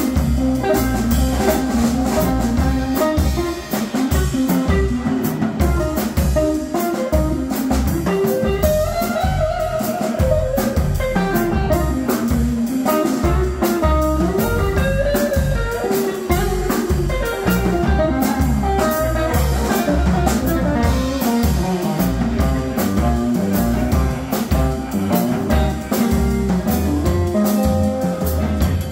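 Chicago blues played live by an electric guitar, upright double bass and drum kit, an instrumental passage with the guitar carrying the melody line.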